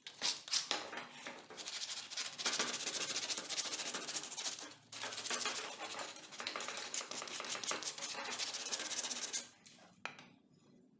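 Sandpaper rubbed by hand along a wooden axe handle in rapid back-and-forth strokes, with two short pauses, stopping near the end.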